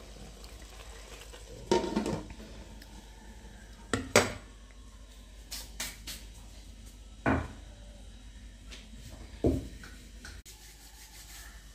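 Kitchen clatter: pots and utensils being knocked and set down, several sharp separate knocks a second or two apart over a faint low steady hum.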